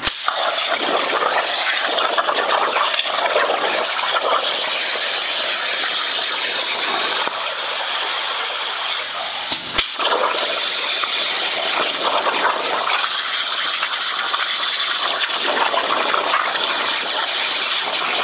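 Razorweld Razorcut 45 air plasma torch cutting sheet steel on a CNC plasma table: a steady hiss of the arc and compressed air. A short break with a sharp click comes about ten seconds in.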